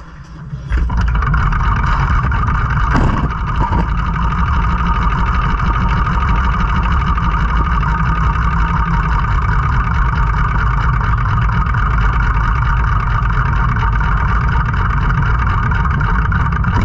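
Quarter midget race car's single-cylinder Briggs & Stratton Animal engine running loud and steady at speed. It swells in about a second in, after a brief quieter moment.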